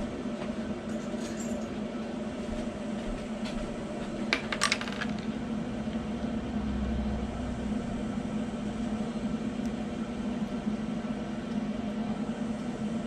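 Steady low hum in a small room, with a quick cluster of small sharp clicks about four and a half seconds in as small parts are handled with a knife.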